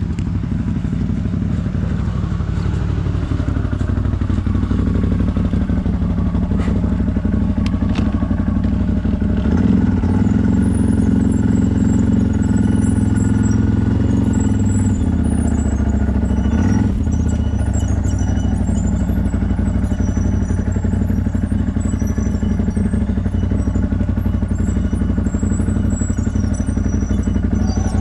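ATV engine running at low revs. Its pitch falls over the first few seconds and then holds steady, with a few sharp knocks and clatter.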